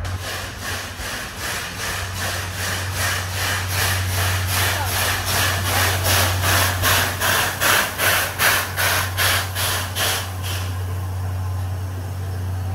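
Class C11 steam tank locomotive chuffing as it pulls slowly into the platform, with rhythmic hissing exhaust beats about two to three a second. The beats grow louder as it passes and stop about ten seconds in, over a steady low hum.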